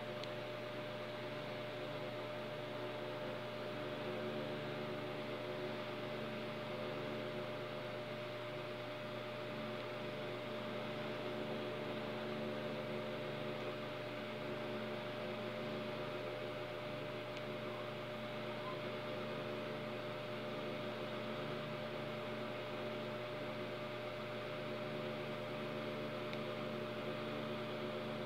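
Steady hum with several held tones over an even hiss, unchanging throughout; no clicks or snips stand out.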